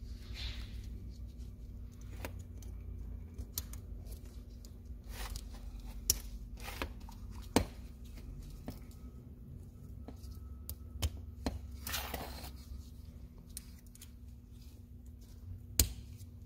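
Irregular sharp small clicks and light handling noise as metal retaining clips are fitted onto port fuel injectors seated in a fuel rail, over a faint steady low hum.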